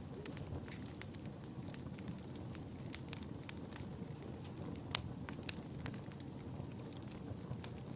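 Wood fire burning in a fireplace: a steady low rumble of flames with frequent irregular pops and snaps of burning logs, one sharper pop about five seconds in.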